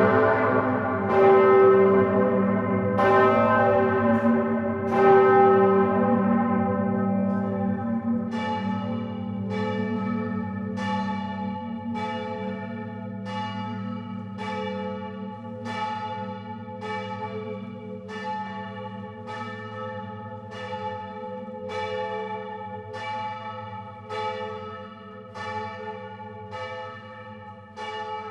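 Large bronze church bells of a Grassmayr-cast peal, heard close up in the bell tower. They ring with heavy strokes about every two seconds for the first several seconds. Then come lighter, quicker strokes a little over one a second, each ringing on over a steady low hum, while the overall loudness slowly falls.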